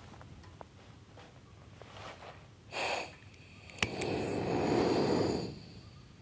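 A matchstick struck on its box with a short scrape, a sharp click, then a camping stove's burner catching with a whoosh of flame that lasts about a second and a half before settling.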